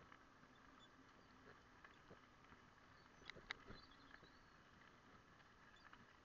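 Near silence: a faint steady hum with scattered small clicks and knocks, and a short cluster of sharper ticks about three and a half seconds in.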